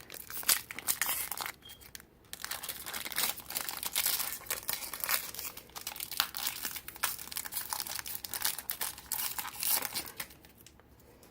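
Foil wrapper of a Pokémon trading card booster pack crinkling and tearing as it is opened and handled, in dense irregular bursts that die away about ten seconds in.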